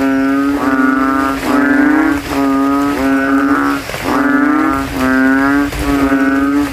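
A chorus of kintel frogs (Kaloula narrow-mouthed frogs) giving loud, deep, bassy calls from inflated throats. The calls come one after another, each under a second long, with at least two frogs overlapping.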